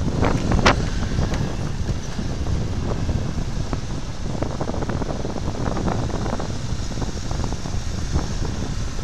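Wind buffeting the microphone of a camera on a moving motorcycle, with motorcycle engines running underneath. A couple of light knocks about half a second in.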